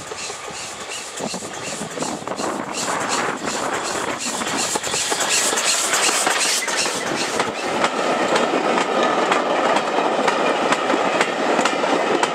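Steam tank locomotive working uphill with a train of carriages: regular exhaust beats that grow louder as it approaches and passes. The carriages' wheels click over the rail joints as they go by.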